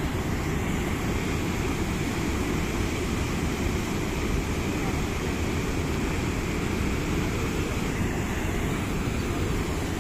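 Floodwater rushing steadily over a concrete sluice weir and churning in the white water below.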